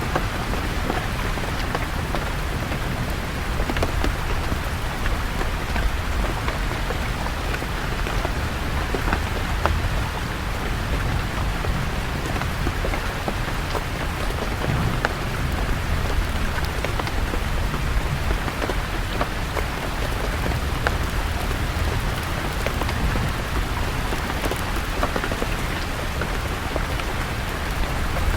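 Steady rain falling on leaves, many drops pattering over a low, constant rumble.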